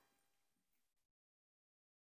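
Near silence: a very faint hiss that drops to dead silence about a second in.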